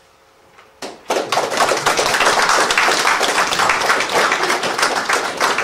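Audience applauding: many people clapping at once, starting about a second in.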